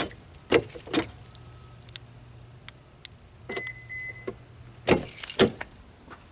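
2008 Subaru Outback's door latches and power door locks clicking and clunking: two sharp clicks near the start and a louder pair about five seconds in, with a short high electronic beep in the middle and a low steady hum between them. Keys jangle.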